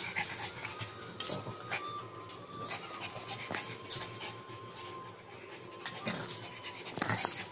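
Pug puppy scrambling about on a glazed tile floor: scattered sharp clicks and taps from its claws, roughly a second apart, with small dog sounds in between.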